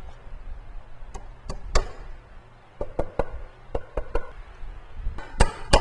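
Hammer driving a 16-penny nail into pine wall blocking: light taps in small groups of about three, then harder, quicker blows near the end.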